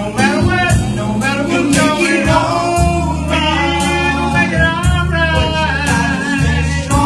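Blues-gospel band playing, with a lead singer over a steady bass line and drum beat.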